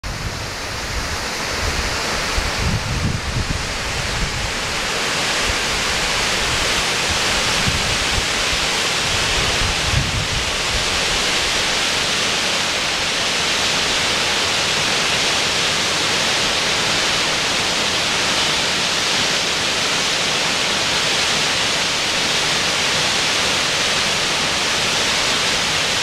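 Waterfall with several cascades rushing steadily down a rock cliff. Wind buffets the microphone briefly about three seconds in and again about ten seconds in.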